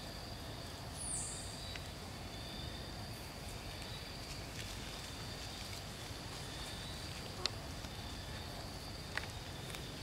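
Outdoor ambience: a steady low rumble with a faint, thin, high insect drone, a short high falling chirp about a second in, and a few light clicks.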